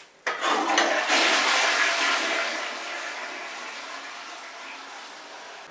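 Toilet flushing: a sudden rush of water about a quarter second in, loudest for the first couple of seconds, then gradually dying down to a quieter, steady run of water.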